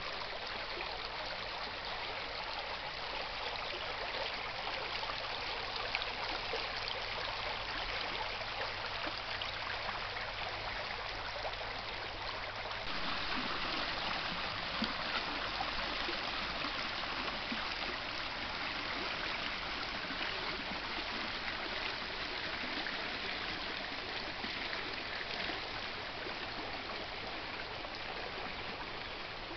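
Shallow stream running over gravel and stones: a steady rush and trickle of water. About 13 seconds in it grows louder and fuller, as the water runs between larger rocks.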